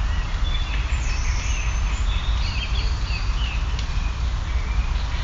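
Birds chirping and singing in woodland: many short, high calls scattered through, over a steady low rumble.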